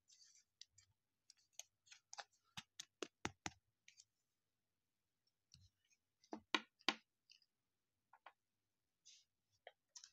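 A trading card being handled into a clear plastic sleeve and rigid plastic hard case: a string of faint, sharp plastic clicks and taps, densest for a couple of seconds just after the start, with another short cluster about six and a half seconds in.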